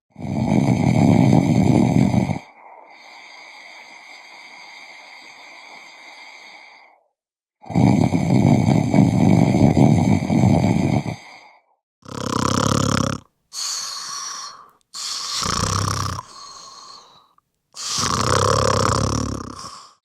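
A person snoring: two long, loud snores, the first followed by a quieter drawn-out breath, then four shorter snores in quicker succession.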